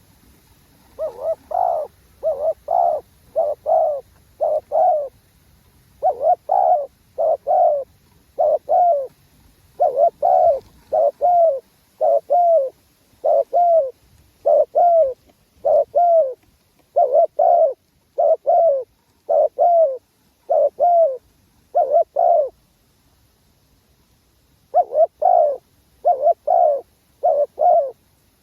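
Spotted dove cooing over and over: short, mellow coos delivered in repeated phrases, pausing for about two seconds near the end before starting up again.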